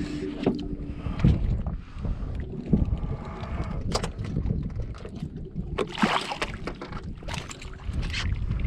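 Wind buffeting the microphone over open water, broken by several sharp splashes and knocks as a hooked fish thrashes at the surface beside the skiff and is brought aboard.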